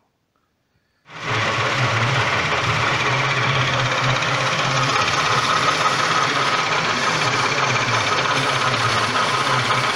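A power tool running steadily under load, machining metal. It starts abruptly about a second in and runs at an even pitch. This is the cutting of larger valve pockets into the piston crowns.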